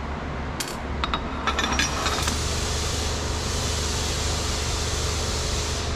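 A few light metal clinks from machined aluminium parts and steel studs being handled, in the first couple of seconds, followed by a steady hiss of shop background noise.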